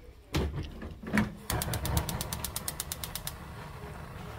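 Gas stove burner being lit: the igniter clicks rapidly, about ten times a second, for nearly two seconds, over a steady low rush of gas and flame. Two knocks come before it near the start.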